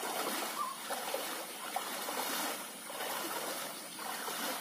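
Shallow stream flowing, with soft sloshing splashes as a person wades through the water.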